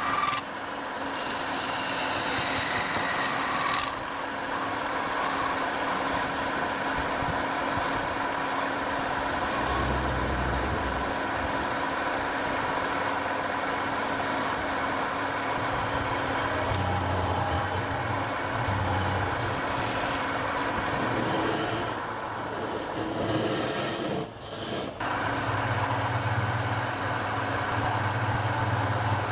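Wood lathe running, with a turning tool scraping and cutting a long spinning piece of wood over a steady motor hum. The cutting noise drops out briefly twice near the end, and a low rumble swells and fades a few times.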